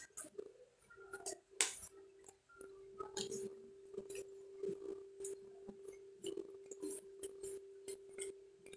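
Tarot cards being shuffled and drawn: irregular light clicks, snaps and rustles of card stock, with a faint steady hum underneath.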